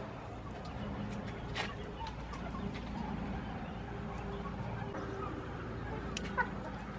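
Chickens clucking softly, with a few faint clicks scattered through.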